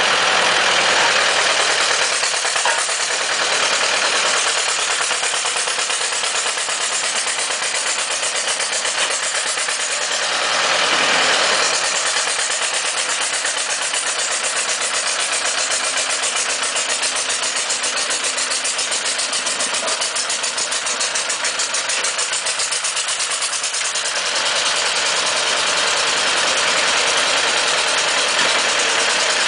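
Weserhütte cable-operated crawler excavator's engine running steadily with a rapid, even firing beat, swelling briefly about a third of the way in. The machine is running for the first time after 20 years laid up.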